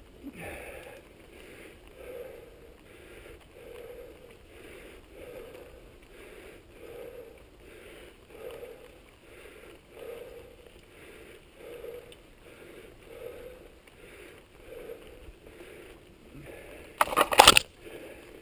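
Mountain bike riding down a dirt singletrack, heard from a helmet camera: a steady rolling rustle with a rhythmic swish about every second and a half. A short, loud clattering burst comes near the end.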